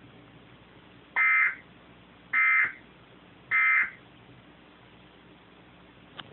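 Emergency Alert System end-of-message data tones from a tornado warning broadcast: three short, harsh, buzzing bursts about a second apart, sent once the spoken warning has finished.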